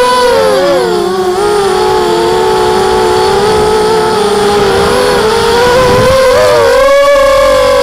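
Brushless motors and 5-inch propellers of a Tarot 250 racing quadcopter whining steadily, picked up close by its onboard camera. The pitch drops about half a second in as the throttle eases, then rises again near the end as the throttle is pushed back up.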